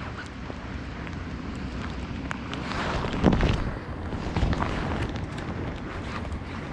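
Wind buffeting the microphone, a steady low rumble that swells into a stronger gust about three seconds in.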